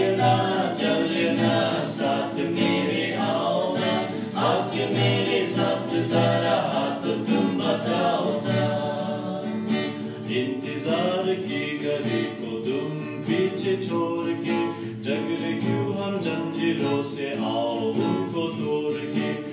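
Male voices singing a song with strummed acoustic guitar accompaniment.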